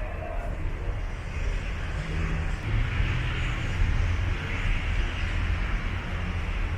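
Steady city background noise: a low rumble under an even hiss.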